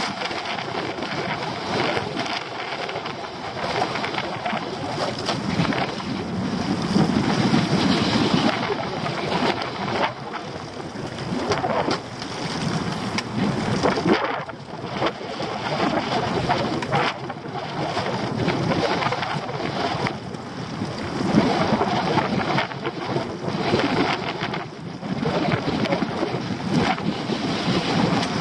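Wind buffeting the microphone and choppy sea washing against the hull of a small open boat, rising and falling in gusts, with a few short knocks as crab pots are handled on board.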